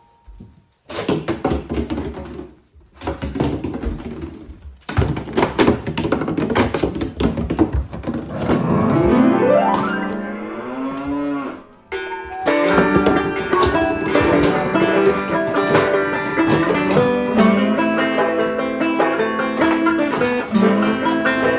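Choppy bursts of sound, then a long cow moo that rises and falls in pitch about nine seconds in, followed by plucked-string banjo music with a steady beat.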